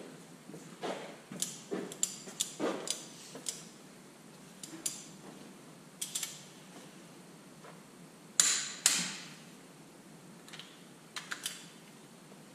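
Metal tools and parts clinking and knocking on a Detroit Diesel 3-53T cylinder head during head installation: a scattered run of sharp clinks, with two louder clanks about half a second apart past the middle.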